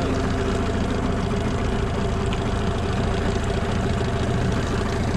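Boat's outboard motor running steadily at low trolling speed, a constant hum with a steady tone and no change in pitch.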